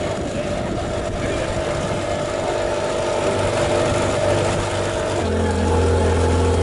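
A boat's engine running steadily; about five seconds in its note changes and a deeper hum comes in, a little louder.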